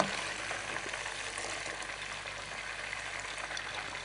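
Chicken steak pieces deep-frying in hot oil in a pot: a steady crackling sizzle, with a brief louder sound at the very start. The meat is partway through frying, browned outside and meant to stay partly raw inside.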